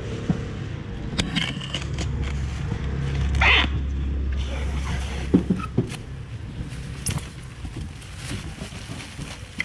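A low rumble of a motor vehicle going past, building to its loudest about three and a half seconds in and fading out by about five seconds. Scattered clicks and rustles of plastic bags and a styrofoam box being handled run under it.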